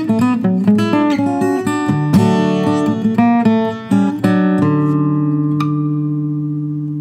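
Steel-string acoustic guitar fingerpicked, quick separate notes over a steady bass, then a final chord struck about two-thirds of the way through and left to ring, slowly fading. A single light click sounds shortly after the chord.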